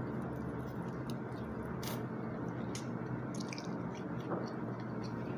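A person chewing food close to the microphone: wet mouth and chewing noises with many small scattered clicks, over a steady background noise.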